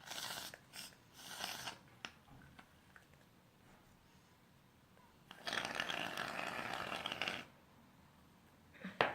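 Aerosol can of shaving foam spraying: a couple of short hisses in the first two seconds, then a steady hiss of about two seconds in the middle as foam is dispensed.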